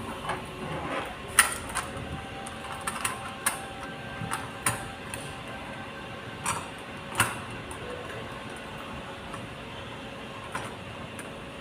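Metal ceiling-lamp parts, curved aluminium arms and a round steel base, knocking and clicking against each other and the tabletop as they are handled and fitted together: about a dozen sharp knocks, loudest about a second and a half in and again about seven seconds in, then only light handling sounds.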